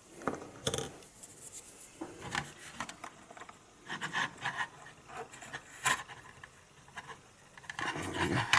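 Plastic model-kit parts being handled and pushed together: scattered small clicks, taps and rubbing as a tailplane is slotted into the fuselage.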